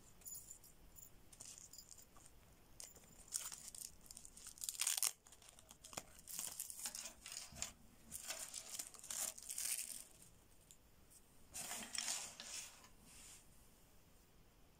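Cordura nylon knife sheath and its webbing straps being handled and the knife drawn from it: rasping, tearing fabric noises in several short spells, the loudest about five seconds in.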